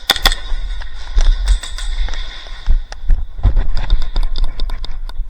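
Airsoft guns firing: a run of short, sharp cracks at an uneven quick pace, getting denser in the second half, over low rumble on the microphone.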